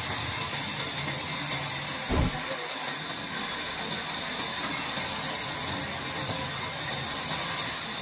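Large sawmill band saw running steadily, a continuous even noise, with one short dull thump about two seconds in.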